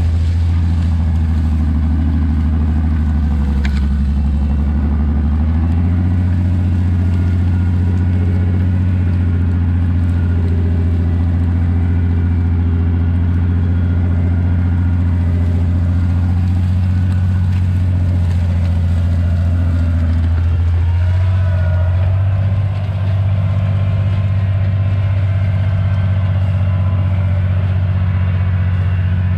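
1962 Farmall 560 tractor's six-cylinder engine running steadily while pulling a moldboard plow through wheat stubble. Its pitch shifts slightly about six seconds in and again about two-thirds of the way through.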